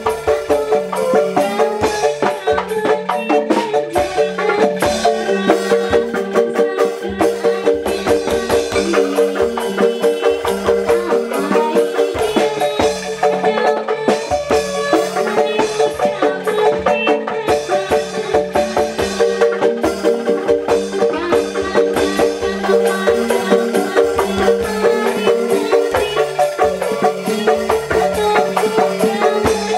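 Indonesian traditional ensemble playing a steady rhythmic tune: a bamboo angklung rattling, a mallet-struck keyed instrument carrying the melody, and drums.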